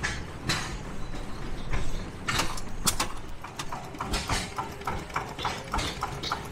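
Antique flywheel gas engines running, with irregular sharp knocks and cracks that settle about halfway into a steady clacking of roughly three a second.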